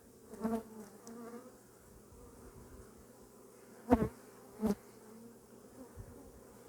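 Honeybees buzzing steadily around an open hive, with a few brief louder sounds, the loudest about four seconds in.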